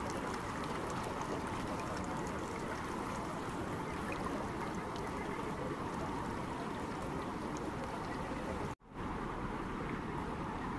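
Shallow river rushing steadily over rocks. The sound cuts out for a moment about two seconds before the end, then carries on.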